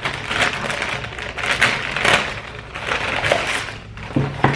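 Plastic mailer bag being torn open and crumpled by hand: a run of short crinkling, rustling bursts about every half second to a second.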